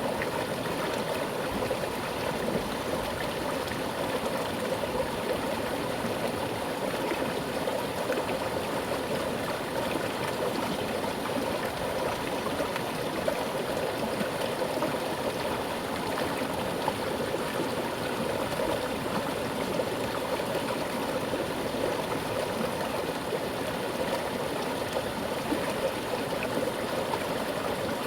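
Mountain stream flowing with a strong current, a steady rushing and gurgling of water over rocks.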